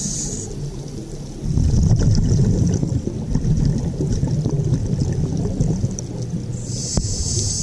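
Scuba breathing heard through an underwater camera: a hiss from the regulator on inhaling at the start and again near the end, and in between a long, low bubbling rumble of exhaled air escaping.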